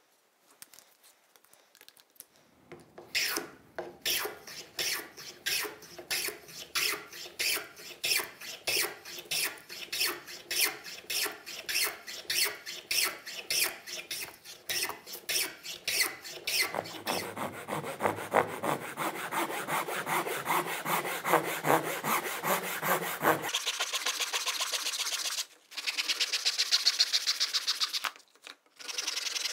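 Small hand plane taking shavings off a hardwood block in repeated push strokes, about two a second at first, then quicker and closer together. Near the end, a fine-toothed handsaw cutting across the wood in rapid strokes.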